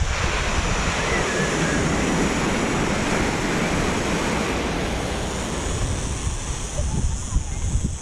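Sea waves washing up the beach in a broad hiss that swells in the first few seconds and slowly fades, with wind buffeting the microphone near the end.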